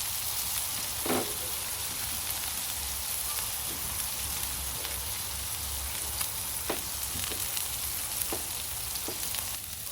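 Smash burger patties and buns sizzling on a hot cooking surface: a steady frying hiss, with a few light clicks now and then.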